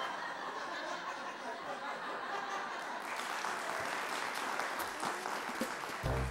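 Sitcom studio audience laughing, with applause joining in about halfway through. A short burst of transition music starts just at the end.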